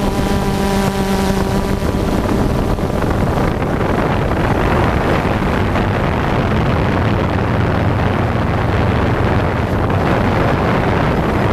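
DJI Phantom 2 quadcopter's electric motors and propellers running, recorded from the GoPro mounted on the drone, with wind buffeting the microphone. A clear steady motor pitch is heard for the first few seconds, then gives way to a rougher, noisier propeller rush as the drone descends.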